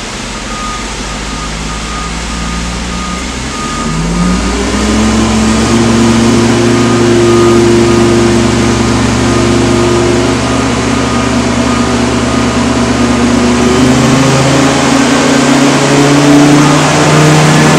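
Mensch vac truck's engine and vacuum unit running, just started to suck up manure. It speeds up with a rising pitch about four seconds in and again near fourteen seconds. A steady, regularly repeating beep sounds for the first ten seconds or so.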